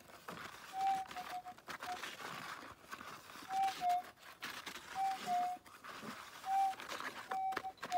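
Minelab GPX 5000 gold detector giving short two-note target signals, a higher note dropping to a slightly lower one, several times as the coil passes over buried gold nuggets. The signals are clean and loud against a soft steady hiss.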